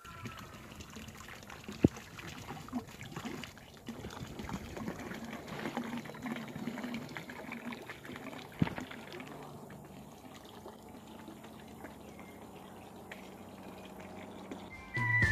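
Water trickling and pouring into a fish pond from an inlet pipe, steady throughout, with two sharp knocks, one about two seconds in and another near nine seconds.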